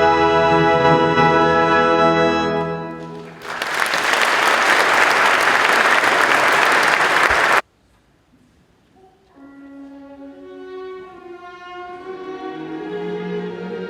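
Music ends on a long held chord, followed by audience applause that breaks out about three seconds in and cuts off abruptly after about four seconds. After a brief near-silence, bowed strings begin slow sustained notes that swell toward the end.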